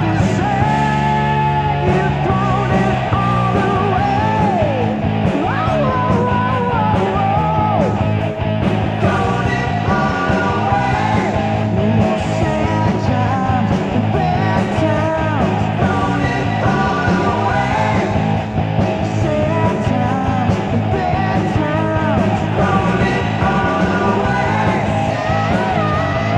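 Hard rock song from a 1987 demo recording: a band of guitars, bass and drums playing loudly and without a break, with a lead singing over it.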